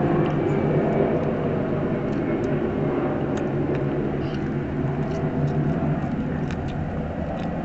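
Steady low mechanical rumble, with a few faint clicks from people eating at the table.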